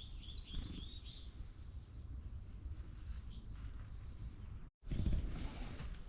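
Small songbirds chirping in quick, high notes, thickest in the first couple of seconds, over a steady low rumble.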